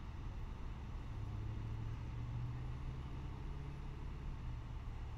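Low, steady hum of a vehicle engine running, growing slightly louder about a second in and easing off near the end.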